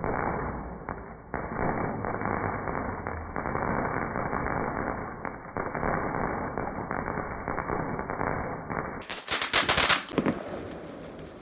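Fireworks crackling and banging in a dense, rapid run of cracks. About nine seconds in, a louder cluster of bangs goes off, then dies away.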